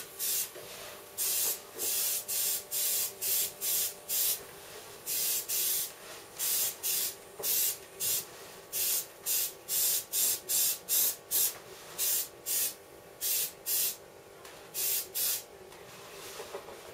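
Airbrush spraying paint in many short bursts of hiss, roughly two a second, as the trigger is pressed and let go, with a faint steady hum underneath. The bursts stop about a second and a half before the end.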